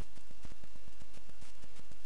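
Steady recording hiss and low hum with fast, irregular crackling clicks, several a second.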